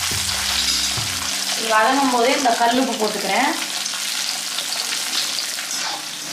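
Shallots, garlic and green chillies sizzling in hot oil in an iron kadai while being stirred with a metal spatula, a steady frying hiss as they are sautéed. A person's voice is heard briefly about two seconds in.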